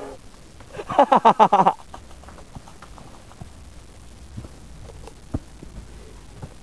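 A person laughing in a short burst of rapid pulses about a second in, followed by faint rustling and a few light clicks.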